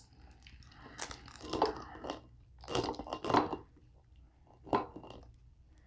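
Cooked lobster tail being pulled apart by hand: the shell crackles and the meat tears in a few short crunchy bursts.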